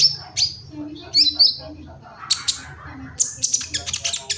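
A sunbird ('kolibri ninja') singing: a quick series of short, high, sharp chirps, with a faster twittering run in the second half.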